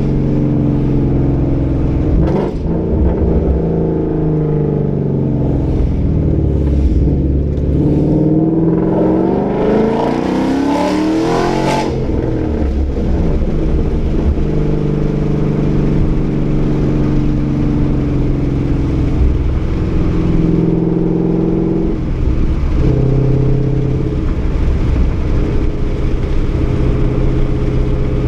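Ford Mustang 5.0 V8 running through a Roush axle-back exhaust with an off-road X-pipe while driving. The exhaust note rises and falls through the gears and climbs hard under throttle from about eight seconds in, then cuts off sharply a little before halfway. It settles into a steady cruising drone for the rest.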